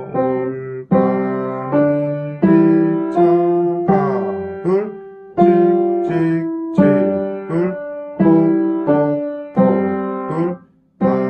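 Piano playing a simple children's song at a slow, even tempo: the melody in the right hand over a left hand repeating a G held for two beats at a time.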